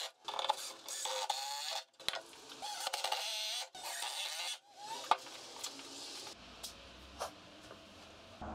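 Power drill driving screws into 2x4 lumber: three runs of the motor whining up to speed and binding, each about a second and a half long. It is quieter over the last few seconds, with a few light clicks.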